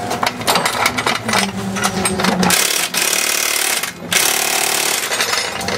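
Impact wrench rattling on a fastener in two long bursts, the first starting about two and a half seconds in and a brief break near four seconds. Before it, clicks and clatter of tools.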